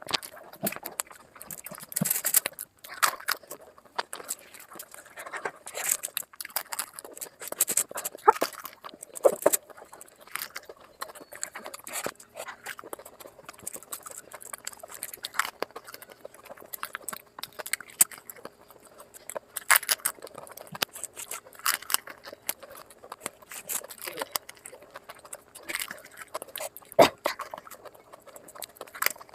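Close-miked eating sounds sped up five times: a rapid, irregular stream of crunching, chewing and mouth clicks from Indian street food such as dahi puri, momos and samosa.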